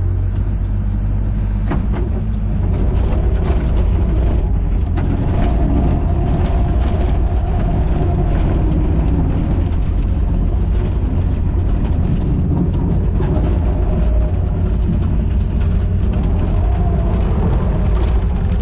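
Excavator's diesel engine running steadily under load as the machine moves, with hydraulic whine and clanking of the arm and tracks, and a high squeal twice, around the middle and again a little later.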